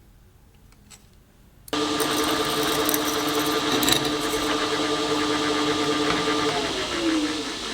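An electric power tool's motor running: it comes in abruptly about two seconds in at a steady pitch, then is switched off near the end and winds down, its pitch falling.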